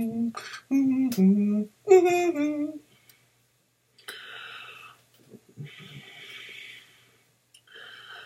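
A man humming a slow, wordless tune of a few gliding notes for about three seconds. After a pause come three soft, breathy rushes of air, each about a second long.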